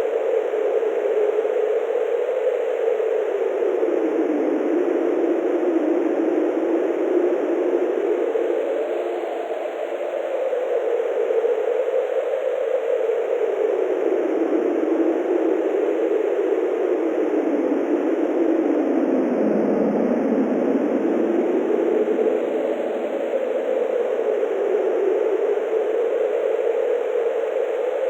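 Wind blowing as a steady rush. Its pitch slowly rises and falls like gusts, dipping lowest about two-thirds of the way through.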